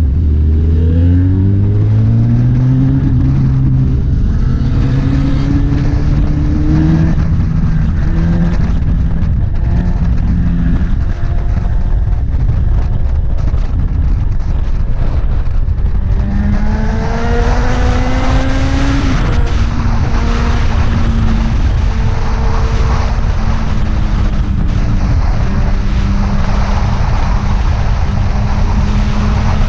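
Motorcycle engine pulling away, rising in pitch over the first few seconds, then climbing again partway through and settling into a steady cruise.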